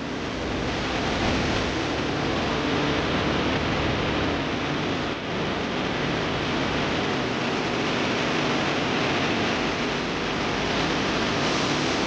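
Floodwater rushing by: a steady, even rushing noise, with a brief dip about five seconds in.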